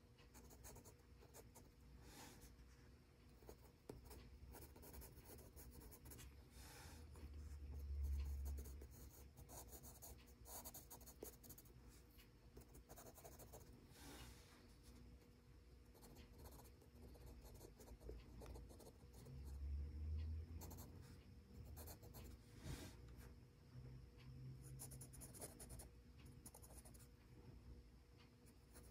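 Faber-Castell Pitt Graphite Matt HB pencil scratching and shading on gray sketchbook paper, faint and irregular strokes. Twice, about a third and two-thirds of the way in, there is a soft low rumble.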